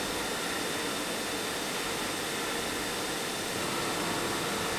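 Steady hissing rush of machine-shop machinery, with a faint steady high tone over it.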